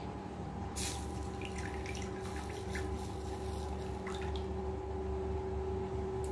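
Water poured from a small clay cup into a miniature clay pot, trickling and dripping in small irregular splashes, with a sharp click about a second in.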